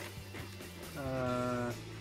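Background music with a guitar: a steady low accompaniment, with one held melody note about a second in.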